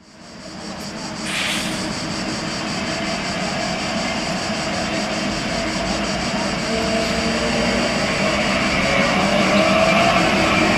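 Translohr rubber-tyred guided tram approaching, its electric drive whining over tyre rumble, growing steadily louder as it nears. There is a brief hiss about a second in.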